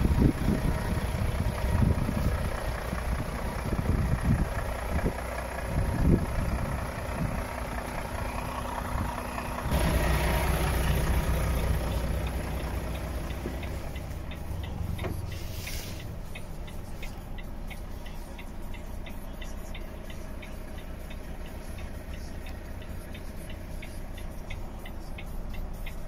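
Volvo FH 540 truck's 13-litre straight-six diesel idling steadily. Gusts of wind hit the microphone in the first few seconds. Later the engine is heard muffled from inside the cab, with a light regular ticking.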